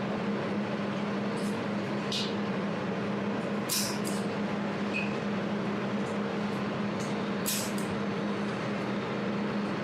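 A 200W jewelry laser welding machine runs with a steady hum. Short, sharp high-pitched hissing snaps come several times at uneven spacing as the laser fires welding pulses.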